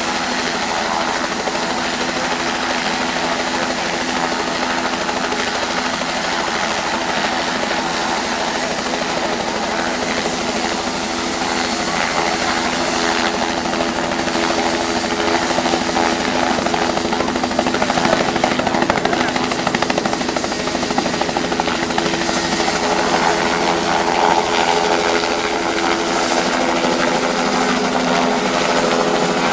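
Air ambulance turbine helicopter running on the ground, with a steady engine drone and a high turbine whine that climbs a little as it powers up. It gets louder about a third of the way in and lifts off in the second half.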